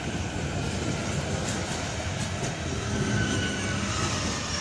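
České dráhy InterPanter electric multiple unit (class 661) pulling out of the station past the platform, a steady rumble of wheels on the rails with faint thin tones coming and going.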